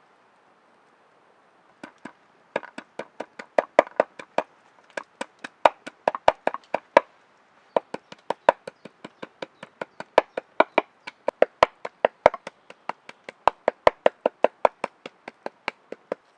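Rapid, even chopping of a blade on wood, about four to five sharp knocks a second, starting about two seconds in, with a brief pause in the middle.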